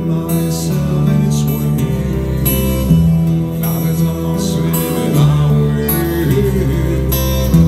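Live rock band playing through a large outdoor PA: strummed acoustic guitar with electric guitar and violin, steady and loud.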